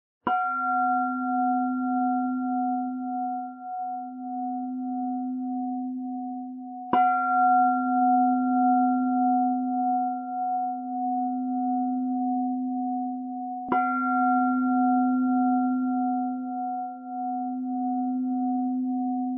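A Buddhist bowl bell (singing bowl) struck three times, about seven seconds apart, each stroke ringing on in a long, steady tone that slowly fades.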